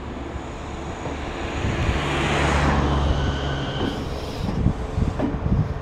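209-series electric train moving slowly along the tracks, giving a steady running rumble that swells about two seconds in, with a low steady hum under it for about two seconds.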